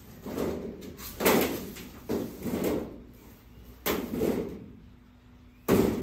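Painted sheet-steel sliding-door panel of a steel wardrobe being lifted out of its cardboard packing, knocking and scraping against the cardboard and the other panels in several separate bumps, the loudest about a second in and near the end.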